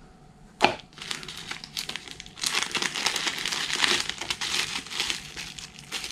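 Bubble wrap and a thin plastic bag crinkling in the hands as a plastic miniature is unwrapped, busiest in the middle, with a single sharp click about half a second in.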